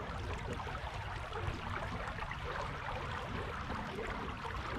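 Steady rush of creek water flowing.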